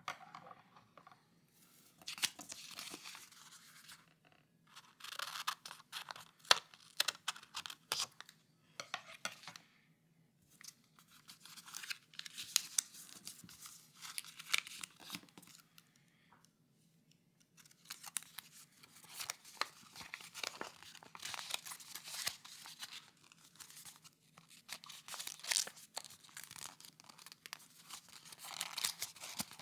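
A blank sheet of paper being torn and crumpled close up, in repeated crackling bursts of a few seconds with short pauses between them.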